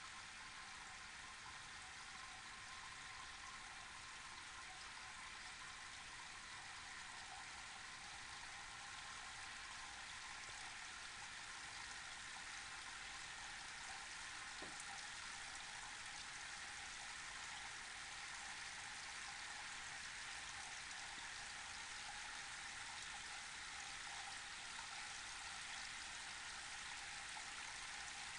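Tiered indoor rain fountain running: many thin streams of water falling from shelf to shelf into its basin, a steady, soft sound like gentle rain.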